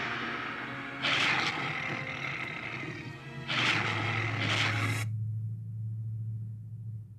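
Made-up Carcharodontosaurus roars, a dinosaur sound effect: a harsh roar swells about a second in and another near the middle. The second roar trails into a low, steady rumbling growl that fades away near the end.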